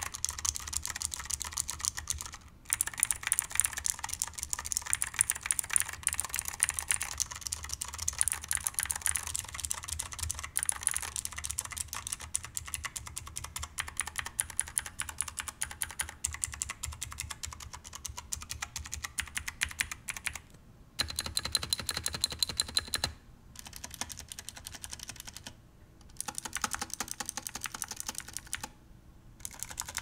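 Fast typing on a Razer BlackWidow V3 Mini with Razer Green clicky mechanical switches, giving rapid sharp clicks. Half the keyboard has PBT keycaps and half has ABS Phantom keycaps, so the two halves sound slightly different. The typing stops briefly several times in the second half.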